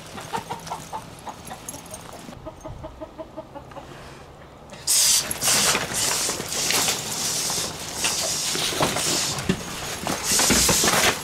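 Chickens clucking in a steady run of short notes, about three a second. About five seconds in, much louder rough scraping and scuffling noise begins: dogs digging at rat holes in the dirt.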